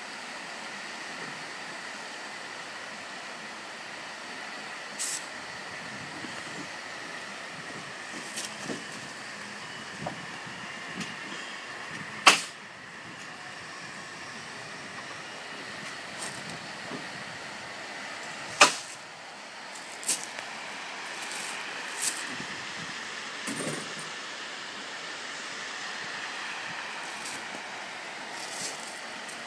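Steady outdoor background hiss and hum with no clear single source, broken by a few sharp clicks. The two loudest clicks come about twelve and nineteen seconds in.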